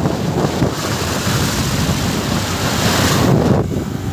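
Wind rushing over the microphone on a moving motorcycle, with a low rumble of engine and road underneath. The high hiss of the wind drops away about three and a half seconds in.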